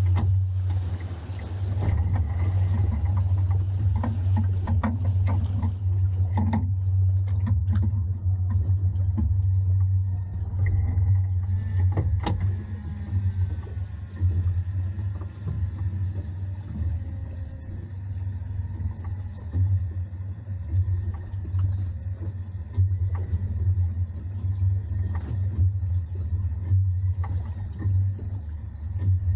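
Fishing boat's engine running steadily with a low rumble, with scattered clicks and knocks of handling on deck.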